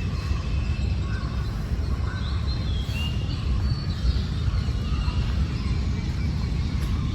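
Several birds chirping and calling in short, high notes over a steady low rumble.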